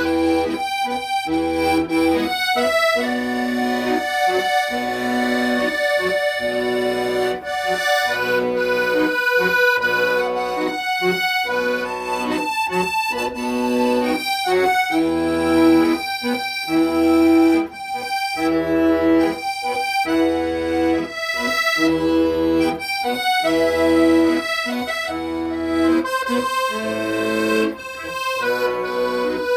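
Accordion playing a slow song melody over a steady, regular bass-and-chord accompaniment.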